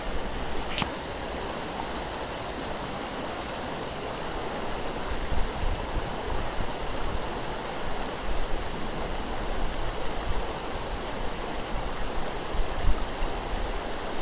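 River current flowing past, a steady rushing and gurgling of water. A single sharp click about a second in.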